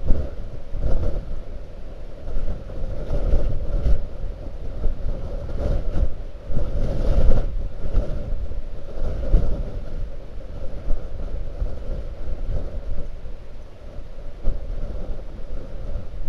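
Blizzard wind buffeting the microphone in irregular gusts: a heavy low rumble that surges and eases every second or two, over a steady drone.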